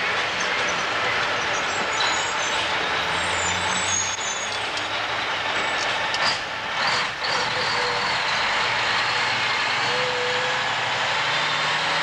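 Mack dump truck's diesel engine running as the truck drives, with steady road noise and a couple of sharp clatters about six and seven seconds in.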